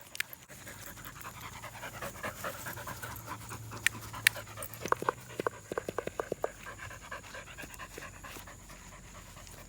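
A dog panting, with a quick run of breaths about five to six and a half seconds in, and two sharp clicks just before.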